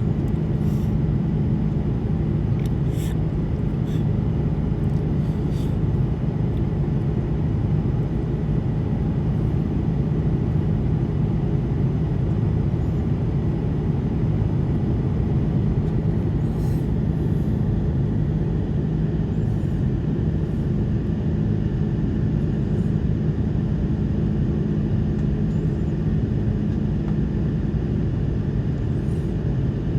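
Steady cabin noise inside an Airbus A330-200 airliner: engine and airflow rumble under a constant low hum, which fades near the end, with a few faint clicks.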